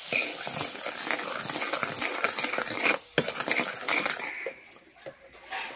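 A spoon scraping and clinking against a metal karai while stirring sugar into thick palm-fruit pulp. It is quick and busy for about four seconds, then turns quieter.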